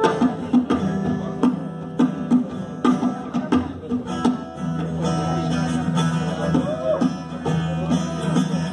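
Live instrumental music: an acoustic guitar strumming a steady rhythm with a flute and a dholak. In the second half the flute plays phrases that bend up and down in pitch.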